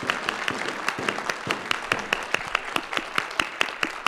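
Audience applauding, with one clapper's quick, regular claps standing out close to the microphone.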